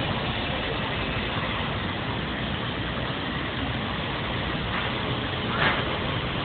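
Steady rumble of a train, with a brief sharp noise about five and a half seconds in.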